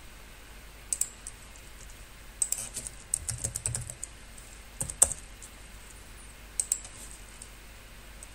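Computer keyboard typing: a couple of clicks, then a quick run of keystrokes, then a few separate sharp clicks.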